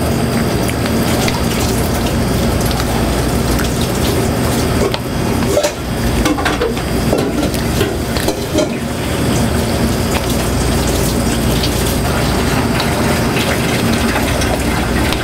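A spatula stirring thick, wet tzatziki (yogurt, sour cream and cucumber) in a stainless steel bowl, with wet mixing sounds and irregular scrapes against the metal, over a steady low hum.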